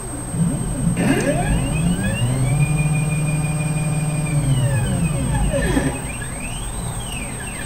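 CNC gantry's stepper motors whining as the thread-laying head travels: the pitch rises as the axes speed up about a second in, holds steady for a couple of seconds, then falls as they slow, followed by a shorter rise and fall near the end.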